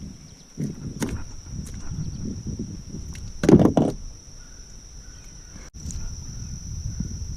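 Knocks and thumps against a kayak hull over low rumbling handling noise, the loudest knock about three and a half seconds in, with a steady faint high whine behind.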